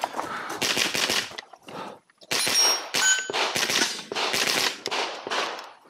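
.22LR rifle firing a rapid string of shots, with a short pause about one and a half seconds in. A metallic ring follows a strike a little after two seconds in.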